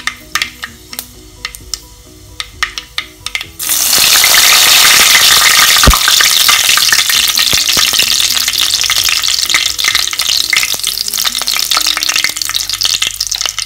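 Mustard seeds crackling and popping in hot mustard oil in a clay pot, heard as sharp scattered pops. About three and a half seconds in, fresh chopped ingredients go into the oil and a loud sizzle takes over, slowly easing, with one low thump just before six seconds in.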